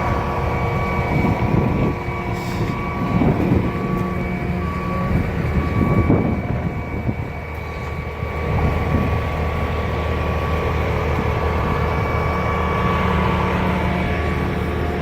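Diesel engine of a concrete pump truck running steadily under load while pumping concrete. A few louder, rougher surges stand out in the first half.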